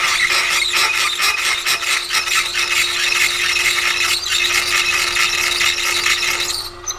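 High-speed steel drill grinding and chattering as it is fed into a hard spot in a cast iron casting on a milling machine: a harsh rasping full of rapid clicks over a steady hum, which stops abruptly near the end. The hard spot is dulling the drill.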